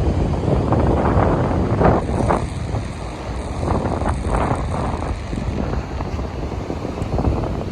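Strong wind buffeting the microphone: a low, rough rumble with irregular gusts that surge and fade every second or so.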